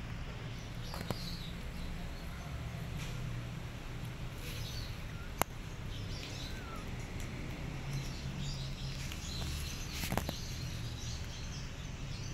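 Outdoor background with a steady low rumble and faint, short bird chirps now and then. A sharp click comes about five seconds in and another near the end.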